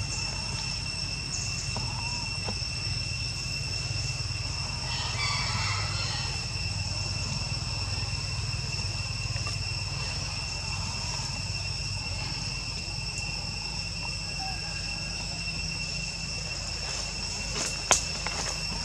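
Steady high-pitched insect drone in the forest, holding two even tones throughout, over a low rumble. A short call rises above it about five seconds in, and a sharp knock comes near the end.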